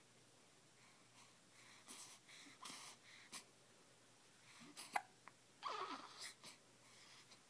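Two-week-old baby's hiccups: a series of small, soft hiccups with faint breaths between them, the sharpest about five seconds in.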